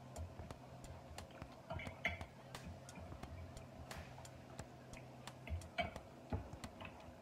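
Close-up eating sounds: chewing and lip smacks with small irregular clicks, and a few stronger knocks around two thirds of the way through, over a faint steady hum.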